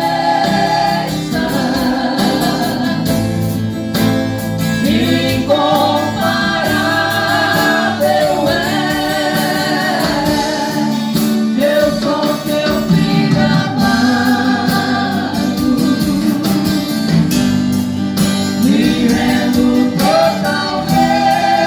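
A gospel ensemble singing a song, several voices together over guitar accompaniment.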